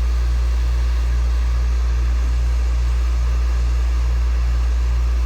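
Hot air rework station blowing onto a circuit board to desolder electrolytic capacitors. It is a steady loud drone: a strong low hum, a pulsing about three times a second just above it, and a hiss of air.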